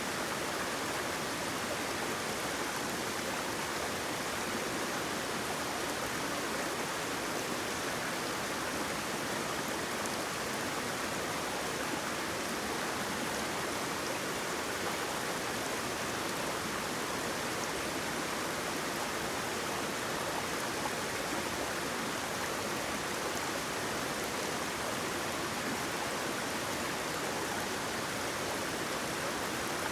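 Waterfall: water rushing and splashing with a steady, even hiss that does not change.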